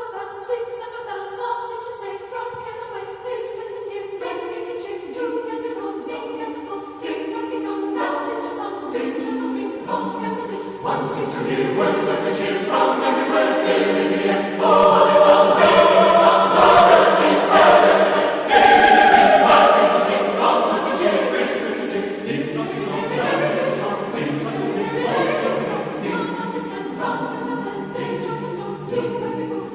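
A choir singing in slow, held chords, swelling loudest around the middle.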